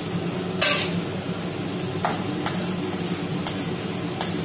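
A perforated steel spoon scrapes and clicks against a stainless steel pan as it ladles simmering curry gravy over boiled eggs. There are about six short strokes, the loudest about half a second in and the rest coming roughly every half second later on, over a steady low hum.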